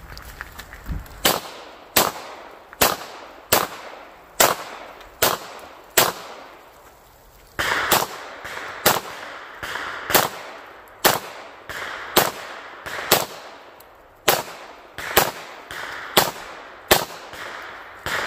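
Handgun shots fired one after another during a USPSA stage, a little faster than one a second, each sharp crack followed by a short echo. Firing breaks off for about a second and a half a little before the middle, then carries on at the same pace.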